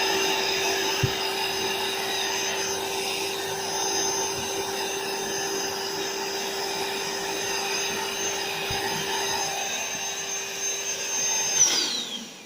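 AeroBed Deluxe Raised's built-in electric air pump running steadily with a high whine, topping up the airbed. It is switched off near the end, and its pitch falls as it spins down.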